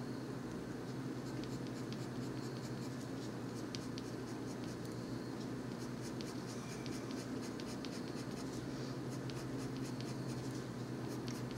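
Coloured pencil scratching on paper in many quick, repeated strokes, laying down heavy dark colour to fill in an area. A steady low hum runs underneath.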